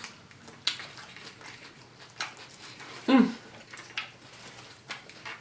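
Quiet eating sounds: a few sharp clicks of knife and fork on a plate and chewing. About three seconds in comes one brief voiced sound that falls in pitch.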